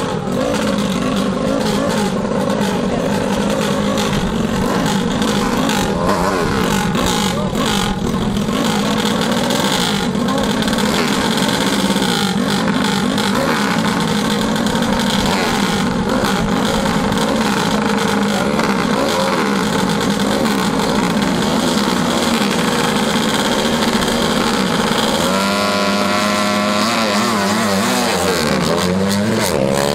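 Small drag-racing motorcycles, one a Honda C50 single, running loud at the start line at steady, held revs. Near the end the pitch drops briefly, then climbs steeply as the bikes launch and accelerate away.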